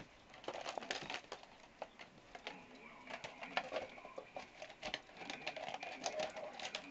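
Golden retriever chewing and ripping up a flower pot: a steady run of irregular cracks, crunches and scrapes.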